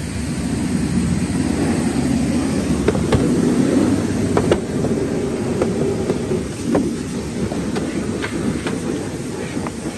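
A steady low rumble, with scattered light clicks and taps as a cardboard sleeve is handled and slid along a plastic tool case.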